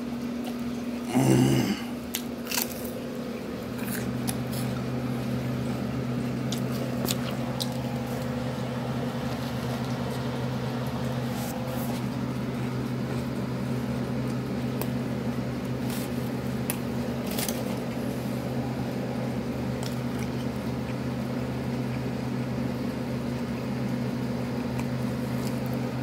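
Close-up chewing and biting of a soft-bread sandwich, with scattered small clicks and a louder brief noise a little over a second in, over a steady low electrical hum.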